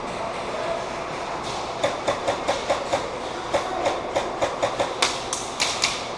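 Airsoft guns firing a string of quick single shots, about four a second, starting about two seconds in and running for some four seconds, with the last few sharper.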